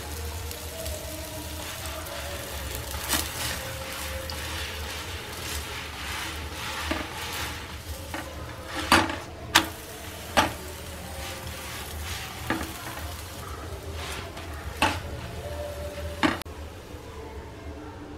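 Oil sizzling under a flat batter pancake frying on a tawa griddle, with a slotted spatula pressing and scraping it. Several sharp knocks of the spatula on the pan, three in quick succession about halfway through.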